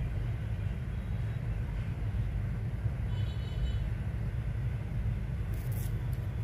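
Steady low background rumble with no distinct events, and a brief faint hiss near the end.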